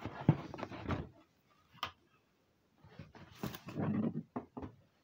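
A boxed mug press being pulled out of its cardboard packaging: rustling of the plastic wrap and cardboard with a few knocks and a sharp click, then a longer scraping rustle past the middle as the machine comes free of the box.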